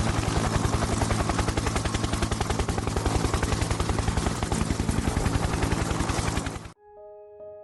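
Loud, rapid, evenly pulsing mechanical rattle, more than ten beats a second, that cuts off abruptly near the end; soft electric piano music begins right after.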